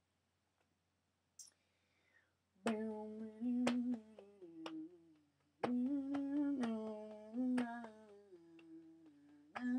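A person humming a tune in long held notes that step up and down, with a sharp click at the start of several notes. The first two and a half seconds are nearly silent, apart from a brief faint falling squeak.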